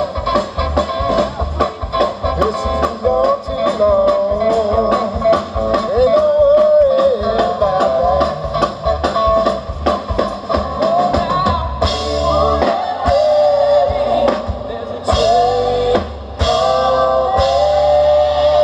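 Live band playing: a lead voice singing over guitars and drums with a steady beat, with a few loud accented hits in the second half.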